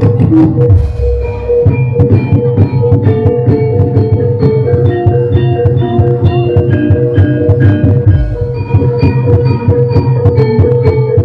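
Live jathilan gamelan music: metallophones playing quick runs of short ringing notes over a busy drum pattern and a steady low bass.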